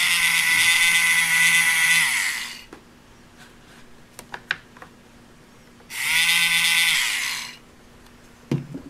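Toy plastic dental drill whirring with a high-pitched whine as it drills into a Play-Doh tooth. It stops about two and a half seconds in, winding down, then runs again for about a second and a half about six seconds in, spinning up and down in pitch. A few light clicks come between the two runs.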